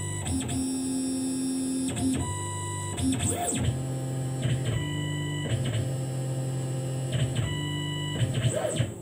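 Tormach PCNC 1100 CNC mill's axis drives whining through an automatic probe find-centre cycle. It is a string of steady pitched whines, each lasting about half a second to two seconds. Each whine stops and restarts with a short slide in pitch as the axes change direction.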